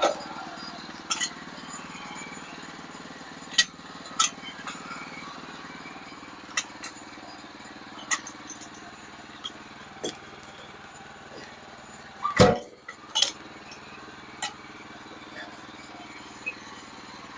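A small engine runs steadily at a low, even speed, with scattered metallic clinks and knocks. The heaviest knock comes about twelve seconds in.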